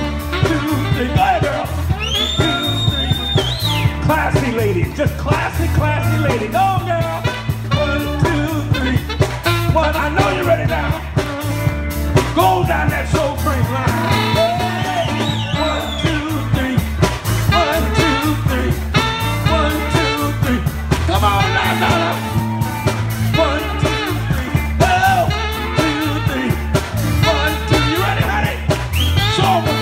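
Live soul band playing an upbeat song, a singer's voice over a steady bass line and drum beat.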